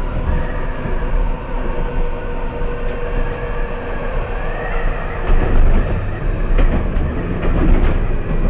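Alstom Citadis tram running along the track, heard from inside the car just behind the driver's cab. There is a steady rumble of wheels on rail and a humming tone that fades out about halfway. After that the rumble grows louder, with a few knocks from the wheels going over the track.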